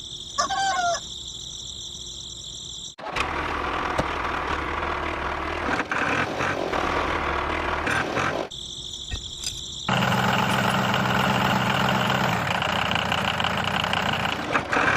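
Small motor-driven model machines running and whirring in several short clips cut together: some segments carry a steady high-pitched whine, others a rougher rattling whir with a low hum underneath.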